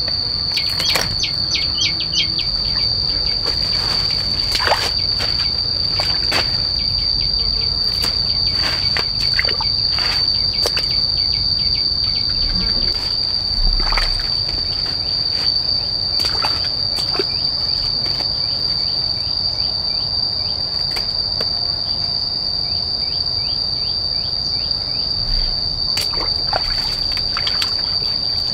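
Insects trilling: one steady high-pitched drone throughout, with a second insect's rapid chirping in runs below it. Scattered sharp clicks and knocks sound now and then.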